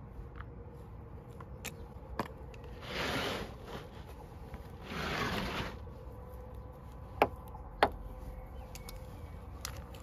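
Hand trowel scooping and scraping potting soil in a plastic plant pot: two gritty scrapes about three and five seconds in, with light ticks between. Two sharp knocks about half a second apart a little after seven seconds.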